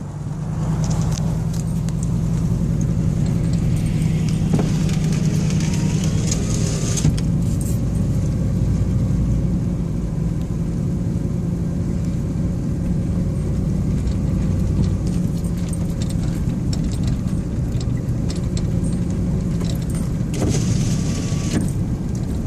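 A car driving slowly on a snowy road, heard from inside the cabin: a steady low hum of engine and road noise, with a higher hiss that is stronger in the first seven seconds and again briefly about twenty seconds in.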